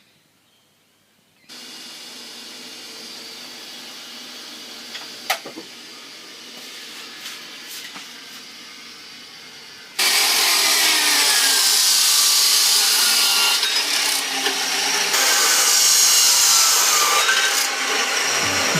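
Workshop tool noise: a low steady hum with one sharp click about five seconds in, then from about ten seconds a much louder sawing sound as material for the rack frame is cut.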